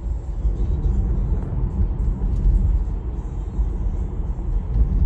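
Low, steady road and tyre rumble inside a Tesla electric car's cabin while it drives at about 50 km/h. There is no engine note.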